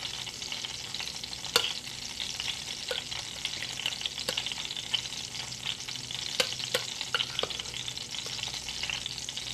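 Oil frying in a cast iron pan, a steady crackling sizzle. Over it a metal spoon stirs milkweed pods in batter in a bowl, giving a few sharp clicks against the bowl.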